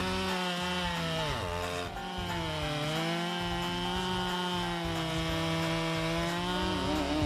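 Stihl MS 881 chainsaw's two-stroke engine running at full speed while cutting through wood; its pitch drops briefly about a second and a half in, then holds steady.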